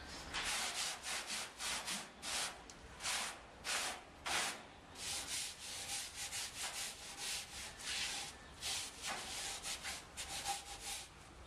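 A run of short, scratchy rubbing strokes, uneven, about two or three a second, cutting off abruptly at the end.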